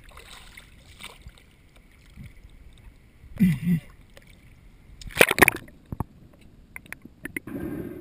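Water sloshing and splashing around a GoPro in its dive housing at the surface, with a short low sound about three and a half seconds in and a loud burst of splashing about five seconds in as the freediver ducks under; near the end the sound turns muffled and underwater.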